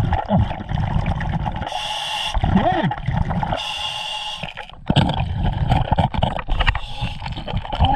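Scuba diver breathing through a regulator underwater: two hissing inhalations about two seconds apart, each followed by exhaled bubbles gurgling and rumbling, the bubbling heaviest in the last few seconds.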